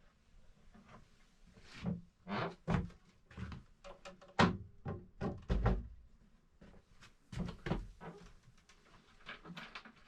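A series of irregular knocks and clunks, like things being moved and handled in a small cabin, with the loudest knock a little under halfway through.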